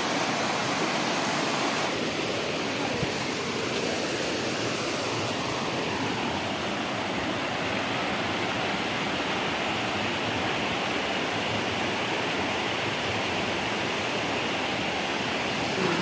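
Water rushing steadily over boulders in a shallow rocky stream with small cascades below a waterfall.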